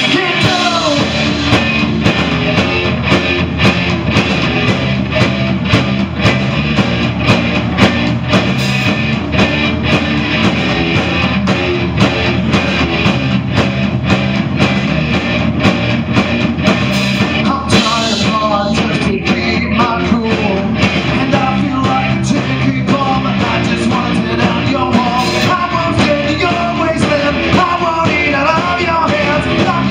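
Live rock band playing: electric guitar, bass guitar and drum kit, with a male voice singing in parts.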